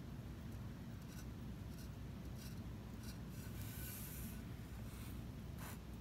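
Faint scratchy strokes of a Mayco Designer Liner underglaze bottle's tip drawing lines on a bisque mug: several short strokes, with a longer one about two-thirds of the way in. A steady low hum runs beneath.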